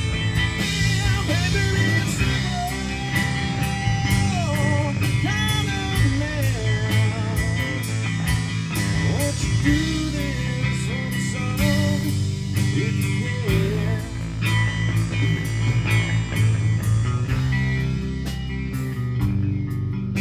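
Live rock band playing loud: electric guitar, bass guitar and drum kit. A melody line bends and wavers in pitch over the band through about the first fourteen seconds.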